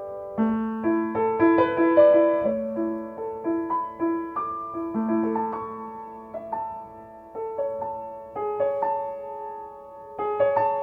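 Solo piano tuned so that C is 528 Hz, playing a slow, gentle melody: one note is repeated several times over held low notes, and a new chord is struck near the end.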